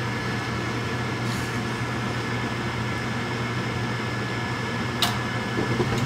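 Gas furnace draft inducer motor running with a steady hum and a thin whine while the hot surface igniter heats up. About five seconds in comes a single sharp click as the gas valve opens to light the burners, and the sound grows a little louder after it.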